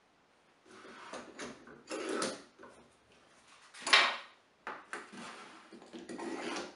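F-clamps being handled and fitted onto a rough wooden board: irregular scraping and knocking, with one sharp clack about four seconds in as a clamp is lifted off the table saw top.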